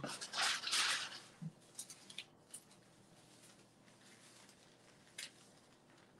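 Paper and fabric rustling for about a second as they are handled and slid into place on the heat press, then a few faint light taps and clicks.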